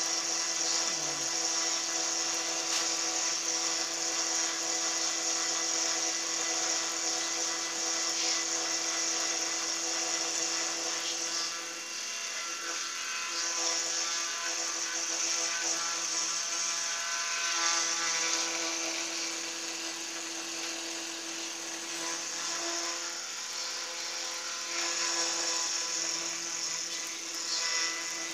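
Small milling machine climb milling with a quarter-inch four-flute carbide end mill, spindle at roughly 1,200 to 1,500 rpm, the table fed by hand. A steady motor whine runs under the cutting noise, which swells and eases as the cut loads up: loudest in the first ten seconds or so and again briefly near the end.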